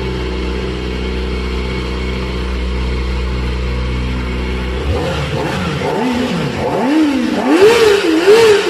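Kawasaki Ninja ZX-4R's inline-four engine idling steadily, then revved in about five quick throttle blips from about five seconds in. Each blip climbs higher than the last, and the last two are the loudest.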